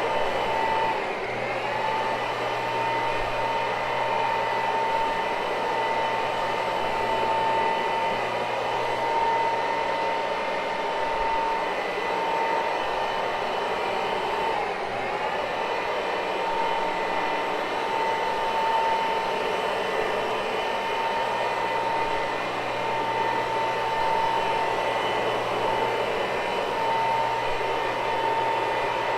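Carpet-cleaning machine running steadily over a low loop carpet, its motor whining. The pitch sags briefly twice as the motor is loaded, about a second in and about halfway through.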